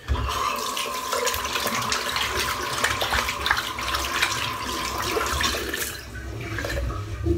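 Water running from a tap into a bathroom sink, a steady rush that starts suddenly and stops about six seconds in.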